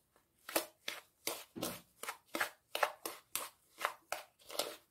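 Metal fork scraping and stirring a damp, crumbly sugar, flour and oil streusel mixture in a bowl, in short rhythmic strokes about two to three a second.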